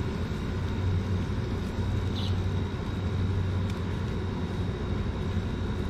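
Steady low background rumble with a faint constant high whine above it.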